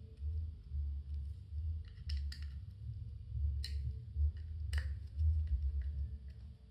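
Small screwdriver turning tiny screws through cardboard into a metal lens mount, with about four sharp metallic clicks between two and five seconds in, over a steady low rumble.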